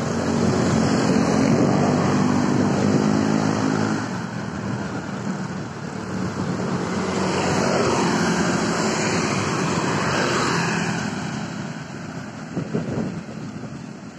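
Road traffic going by on a city street, with motorcycle engines passing close: one loud pass over the first four seconds and another swelling and fading with a changing pitch from about seven to eleven seconds in.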